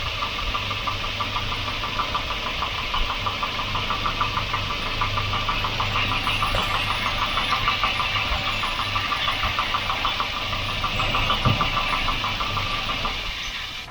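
Volvo car engine idling steadily, with a fast, even ticking rhythm, until it cuts off at the end.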